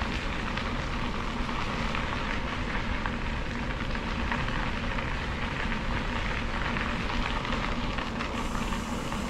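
Bicycle tyres rolling on a gravel trail: a steady crackling hiss of crunching gravel while riding at an even pace.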